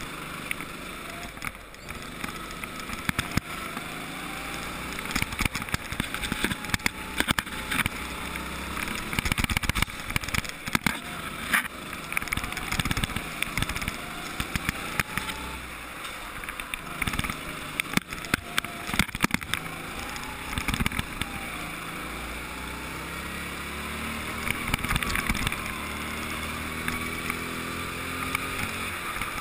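Go-kart engine running while the kart is driven, its pitch rising and falling with the throttle, with frequent sharp knocks and rattles.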